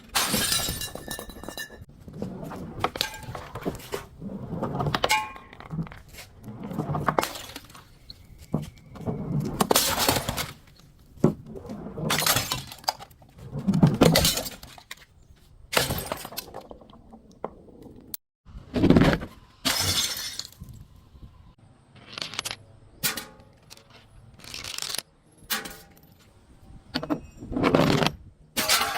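Glass being crushed and breaking over and over, in loud crunching bursts roughly one every second or two.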